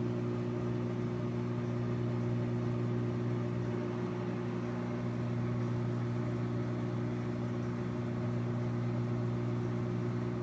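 Microwave oven running: a steady low electrical hum with fan noise.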